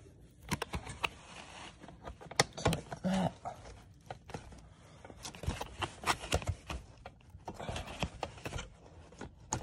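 Scattered, irregular clicks and light knocks from hands fitting a Halloween animatronic's foam leg onto its metal mounting bracket, with low handling noise between them.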